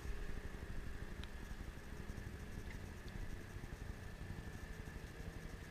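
Outboard motors on several fishing boats running under way, a steady engine drone with a low rumble.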